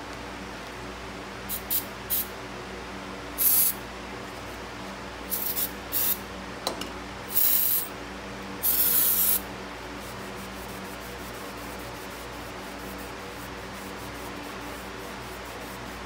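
Aerosol brake cleaner sprayed in a series of short hissing bursts, each under a second, onto front disc brake parts, over the first nine seconds or so. After that only a steady low hum remains.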